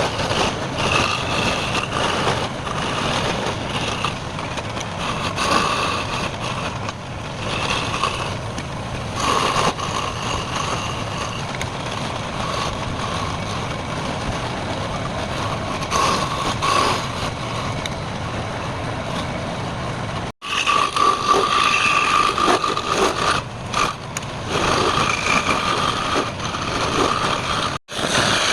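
Wood lathe running, with a turning tool cutting the spinning wood: a steady motor noise with a whine in it. It drops out sharply twice near the end.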